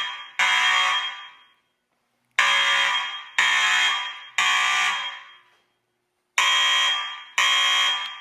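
Building fire alarm sounding the temporal-three evacuation signal after a break-glass call point has been activated. It gives groups of three ringing tones about a second apart, each fading quickly, with a pause after every group.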